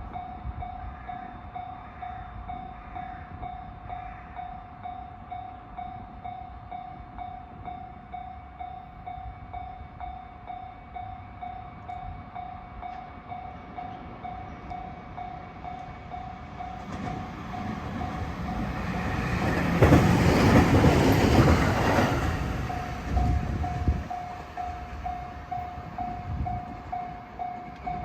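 Japanese level-crossing warning bell ringing a quick, steady electronic ding-ding. About two-thirds of the way through, a train passes over the crossing: its rumble and wheel clatter swell, briefly drown out the bell, then fade while the bell keeps ringing.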